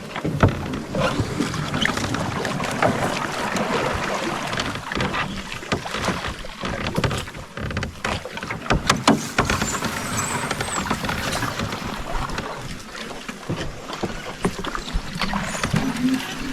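Canoe being paddled through a creek: water splashing and sloshing around the paddles and hull, with scattered sharp knocks.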